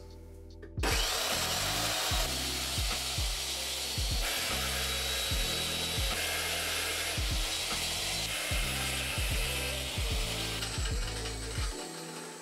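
Magnetic drill press running a twist bit through a steel frame tube, with a harsh, grinding cutting noise that is really disgusting. It starts about a second in and stops near the end.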